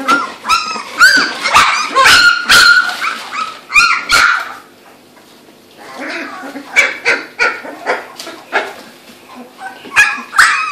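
Young Labrador puppies, two to three weeks old, giving rapid high-pitched yips and squeaky little barks, one after another. They go quiet about halfway through, then start up again and grow loud near the end.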